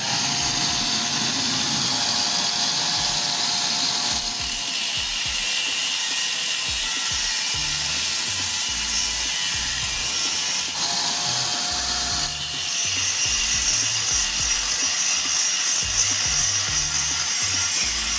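Angle grinder with a cutting disc slicing through slotted steel channel: a steady high whine and hiss, its tone shifting abruptly a few times.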